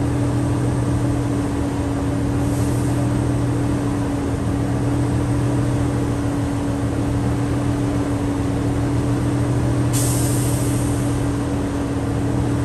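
DD15 diesel engine in a Freightliner Cascadia running steadily at a raised speed of about 1,600 rpm during a parked DPF regeneration. A short hiss of air breaks out about ten seconds in and fades over a second, with a fainter one a couple of seconds in.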